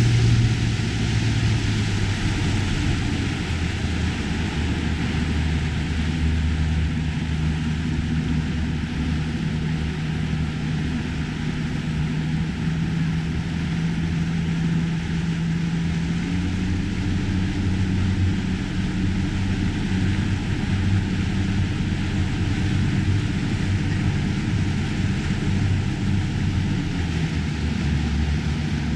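Motorboat engine running steadily under way, with water and wake rushing along the hull. The engine's pitch steps up slightly about halfway through.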